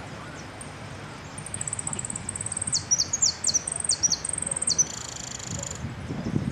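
Jilguero finch singing a song of rapid high trills and quick down-slurred notes. It ends in a buzzy trill about five seconds in.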